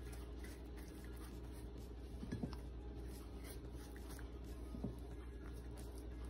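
Faint soft brushing and dabbing of a pastry brush spreading butter over baked cinnamon rolls, with a couple of light taps, over a steady low hum.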